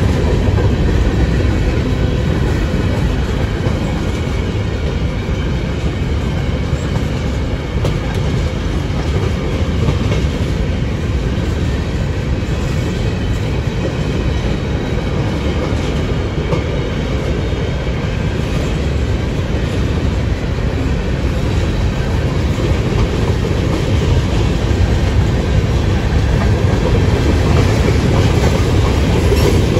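Empty open-top hopper cars of a freight train rolling past, their steel wheels running steadily on the rails with a continuous low rumble.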